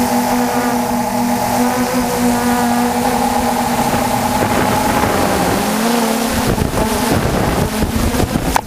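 DJI F450 quadcopter's motors and propellers whining steadily in flight. About five and a half seconds in, the pitch dips and climbs, and the sound turns rough and noisy as the quad pulls out of a dive just above the ground on full throttle. A sharp click comes just before the end.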